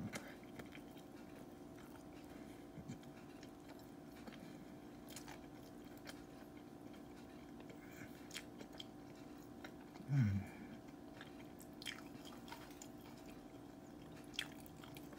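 Faint chewing of a crispy fried chicken sandwich, with scattered small crunching clicks from the breading, over a steady low hum. A short low "mm" from the eater's voice comes about ten seconds in.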